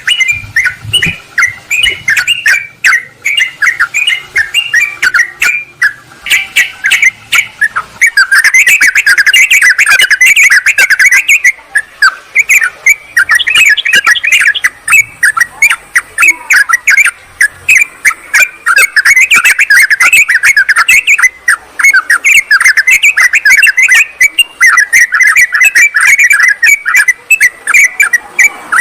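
Yellow-vented bulbuls (trucukan) chattering continuously in rapid, bubbly, overlapping calls, the noisy calling of birds challenging rivals.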